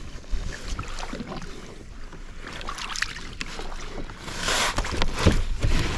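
Water sloshing and splashing as a freshly landed tope is rinsed off over the side of a kayak, with scattered knocks and wind rumble on the microphone; a louder burst of splashing comes a little after four seconds in.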